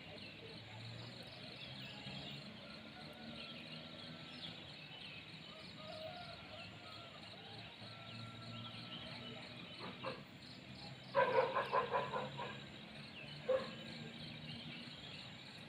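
Rural outdoor ambience with insects chirping steadily in an even, rapid pulse. About eleven seconds in, a loud pulsing call lasts just over a second, with a short one about two seconds later.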